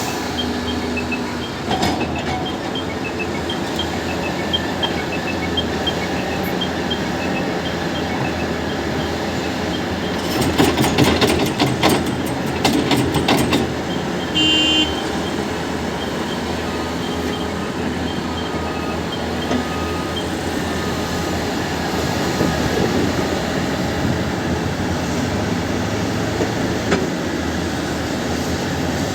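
Heavy diesel earthmoving machinery, an excavator and tipper dump truck, running steadily. About ten seconds in comes a few seconds of rattling and clattering, typical of a bucket load of soil dropping into the truck's steel body, followed by a brief beep.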